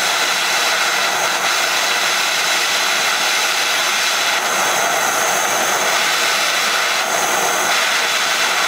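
Hand-held gas torch burning with a steady, even hiss as its flame heats a piece of spring steel so it can be bent without stressing it.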